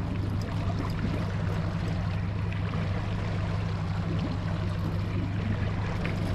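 Outboard motor of a small fishing boat running at a steady low hum, with water and wind noise washing over it.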